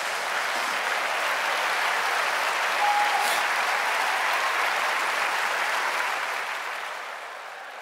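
Large theatre audience applauding, a dense steady clapping that fades away over the last couple of seconds.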